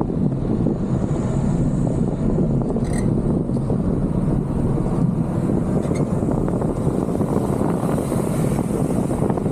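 Steady low rumble of wind buffeting the microphone of a camera mounted outside a moving car, mixed with tyre noise on a dirt road.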